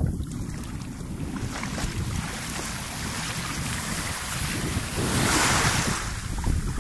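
Small waves lapping and washing on a sandy shore, with wind rumbling on the microphone; a louder rush of water comes about five seconds in.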